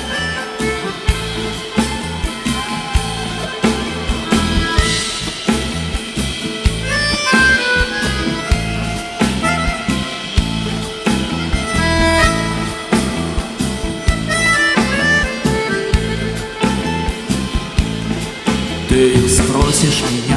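Live rock band playing an instrumental intro led by a bayan (Russian button accordion), over a steady drum-kit beat with guitars.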